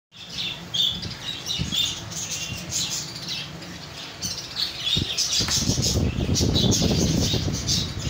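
A roomful of caged pet birds (budgerigars, cockatiels and lovebirds) chattering and squawking in many short, overlapping calls. From about five seconds in, a louder low rustling joins the calls.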